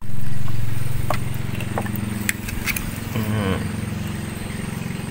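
A fork clicking a few times against the shell of a boiled mud clam and the plate as the clam is pried open, over a steady low hum.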